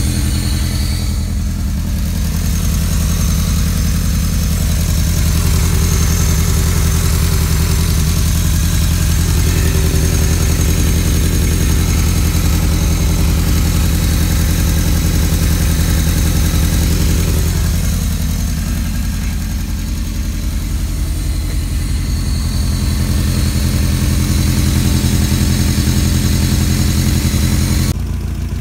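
Toyota 5S-FE 2.2-litre 16-valve inline-four idling steadily on its first run after an oil pump and timing belt job, with timing that checks out good and no leaks so far.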